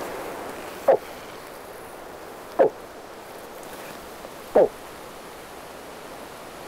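A hunter calling moose with his voice through cupped hands: three short grunts about two seconds apart, each dropping in pitch, like a bull moose's grunt.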